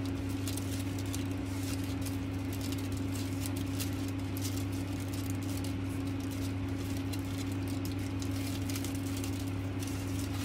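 Satin ribbon rustling and sliding as hands fold and loop it into a braid, with many faint, irregular crinkling ticks over a steady low hum.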